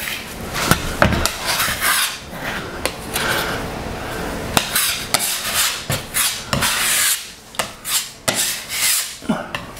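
Putty knife scraping spackling paste over the countersunk screw holes of an MDF panel, in short, irregular strokes, with a few sharp clicks between them.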